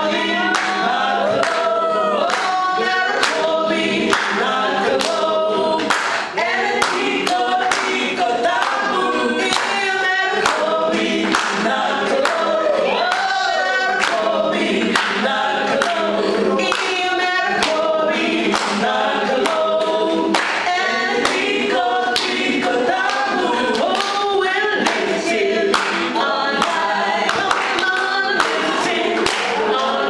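A small group of women singing a worship song together into microphones, several voices at once in harmony, without a band.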